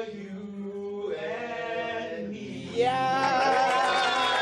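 Two male voices sing unaccompanied into microphones, holding long notes. About three seconds in, a louder mass of many voices breaks in: the audience shouting and cheering as the song ends.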